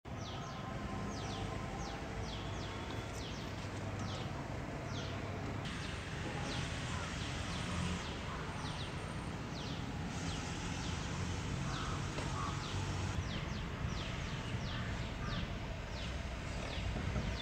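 Birds calling, with many short, quick chirps repeating throughout over a steady low background rumble.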